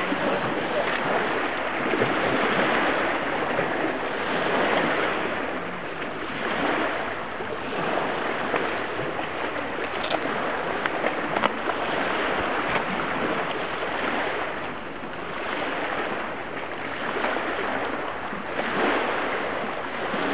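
Lake waves washing against the shore, a steady rushing noise that swells and fades every couple of seconds.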